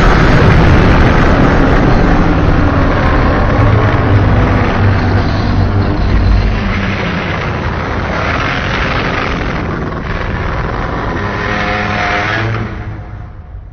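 Shin Godzilla sound effect: one long, loud, harsh sound with a deep rumble underneath, easing off over its last few seconds and fading out near the end.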